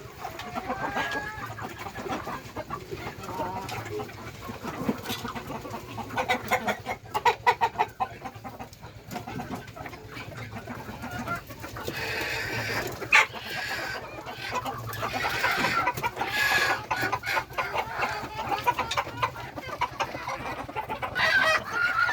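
A flock of chickens clucking, several birds calling over one another, busier in the second half, with one sharp tap about thirteen seconds in.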